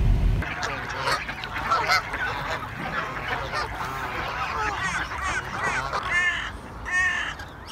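A large flock of waterfowl calling on a lake, a dense chorus of many overlapping calls with a few louder ones standing out near the end. A car's low road rumble cuts off just after the start.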